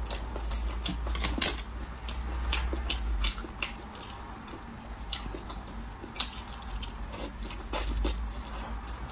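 Close-miked mouth sounds of someone eating small sauced roasted chicks: irregular wet smacks, lip clicks and chewing, several a second, over a low steady hum.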